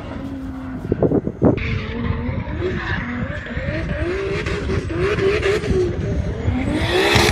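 Turbocharged BMW E30 with a swapped-in S54 straight-six making 1250 hp, revving hard while drifting, with tyres skidding. The engine note swings up and down, with a few sharp pops about a second in, and it rises and grows louder near the end as the car comes closer.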